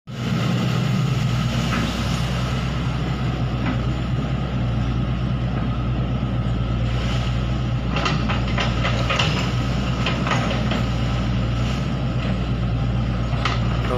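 Hydraulic excavator's diesel engine running steadily as the machine wades across a river, with a few short knocks about eight to ten seconds in.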